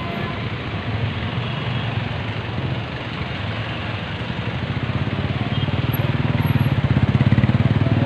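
Street traffic noise, with a motorcycle engine growing louder from about halfway through as the bike passes close by.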